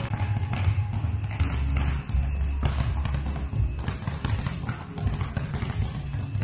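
Background music with long, steady bass notes, over the rapid taps of basketballs being dribbled on a gym floor.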